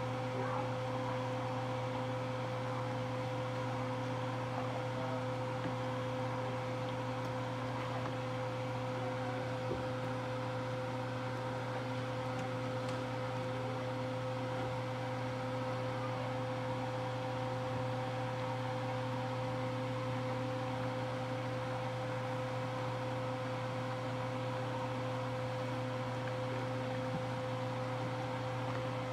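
Steady hum of a running kitchen appliance: a low drone with a constant higher tone over it, unchanging throughout.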